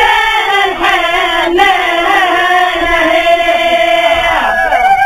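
Voices singing a slow, chant-like song with long held notes that slide in pitch. A held line falls away about four and a half seconds in before the singing carries on.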